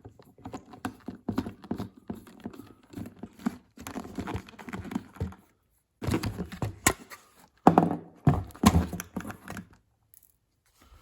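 Hands and tools working at a car's plastic centre-console trim: a run of irregular clicks, scrapes and rattles, with louder knocks about seven to nine seconds in, as the shifter trim is forced loose.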